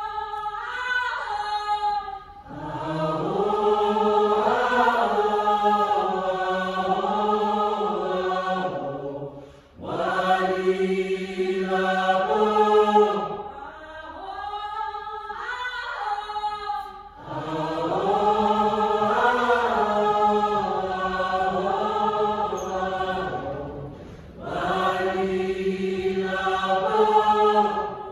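A choir singing in sustained chords, phrase after phrase, with short breaks between the phrases.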